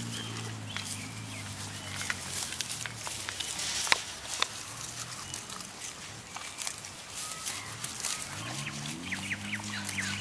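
A Rottweiler's low, drawn-out moaning calls, wavering up and down in pitch, at the start and again from about eight and a half seconds in. Scattered sharp clicks fall in between.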